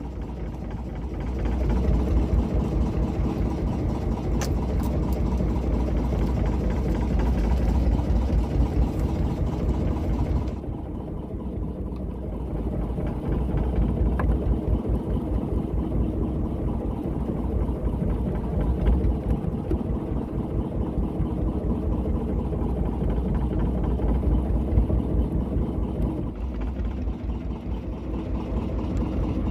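Fishing boat's engine idling, a steady low throb.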